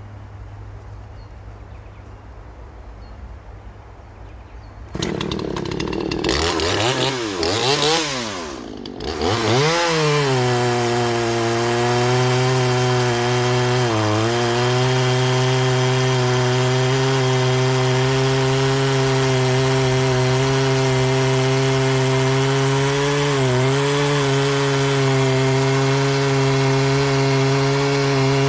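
Two-stroke chainsaw idling quietly, then revved up and down several times about five seconds in, then held steady at high revs from about ten seconds on, its pitch dipping briefly twice. The owner suspects the muffler plate is holding the saw back.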